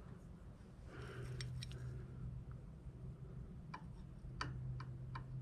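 A few light, separate metallic clicks and taps from motorcycle foot peg parts being handled, over a steady low hum.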